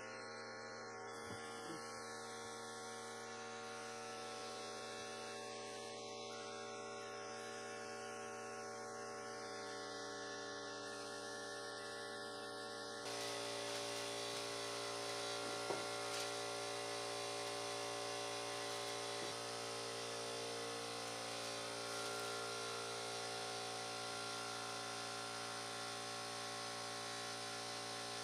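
Steady electrical hum with many overtones, a little louder after a cut about 13 seconds in, with a faint tap near 16 seconds.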